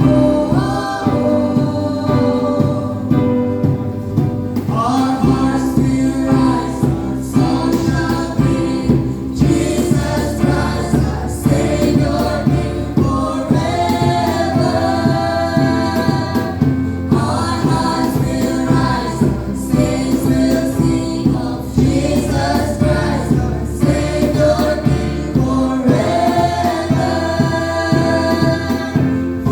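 Youth choir singing a Christian worship song in held phrases of a few seconds each, over low instrumental accompaniment.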